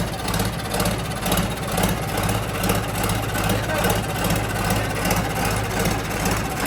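Diesel tractor engine idling steadily with an even low pulse.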